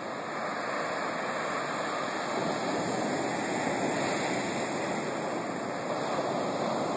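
Ocean surf washing on a beach: a steady rushing of waves.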